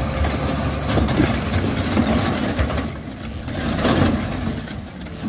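A dump truck's engine runs steadily while its raised bed tips out a load of stone blocks. The blocks slide and tumble to the ground in rumbling, clattering falls, loudest about one, two and four seconds in.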